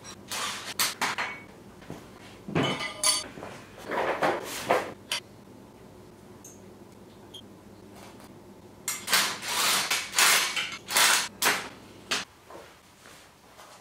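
Hand tools clinking and scraping against the metal exhaust fittings of a Yamaha XSR700 as they are worked on from underneath, in short bursts of clinks with a quieter stretch of a few seconds in the middle.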